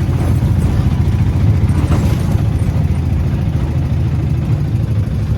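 Auto-rickshaw (tuk-tuk) engine running steadily, a loud low rumble with a fast even pulse.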